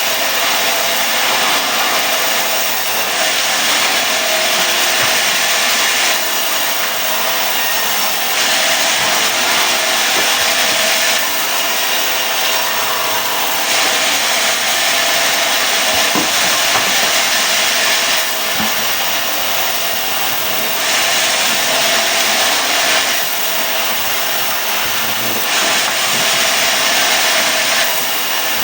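Sawmill saw cutting mahogany into boards: a loud, steady noise of blade through wood whose hiss grows stronger and weaker in turn every few seconds.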